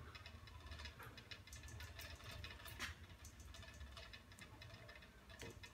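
Faint scattered clicks and light metal-on-metal ticking as a brass valve fitting is hand-threaded onto a visible gas pump's outlet, over a low steady hum.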